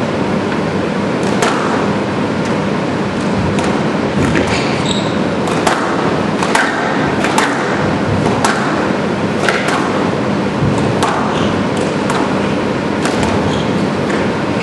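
Squash rally: the ball cracking off rackets and the court walls about once a second, over a steady hum.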